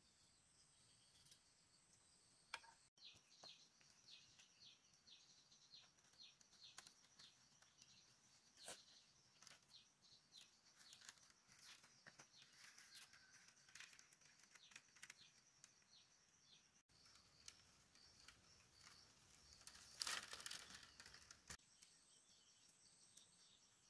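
Faint rural ambience: a steady high insect drone, with many short, high, falling chirps over most of the stretch and a brief louder rustle about twenty seconds in.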